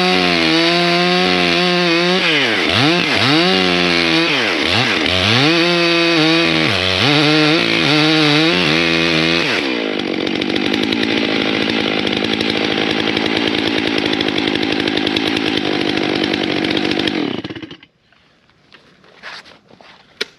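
Stihl MS 661 two-stroke chainsaw cutting into a tree trunk: its revs repeatedly sag and recover as the bar bites into the wood. It then runs at steady high revs for about seven seconds and stops abruptly near the end, leaving a few faint knocks.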